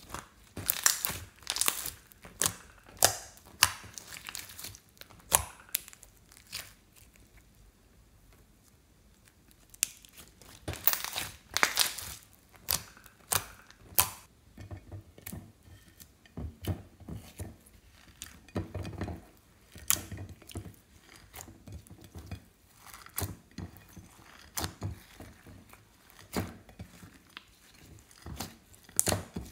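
Hands squeezing, stretching and poking slime, with air pockets popping and crackling in sharp, irregular clicks. There is a lull of a few seconds about a third of the way in.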